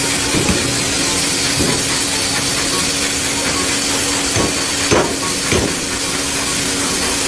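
A loud, steady hiss with a low steady hum beneath it and a few scattered knocks; it cuts off suddenly at the end.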